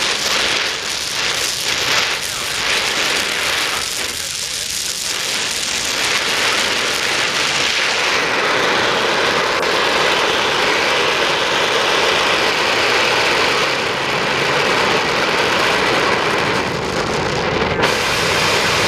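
Oxy-acetylene welding torch flame hissing steadily while fusing mild steel; the hiss is uneven for the first few seconds, then holds steady from about eight seconds in.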